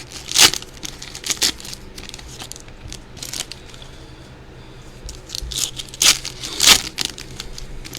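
Foil trading-card pack wrappers being handled, crinkling and rustling in several short bursts, the loudest near the end.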